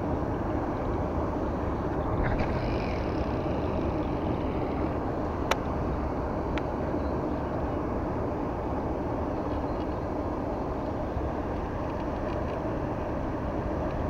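Steady low rumbling outdoor noise on the camera microphone, with two short sharp clicks about five and a half and six and a half seconds in.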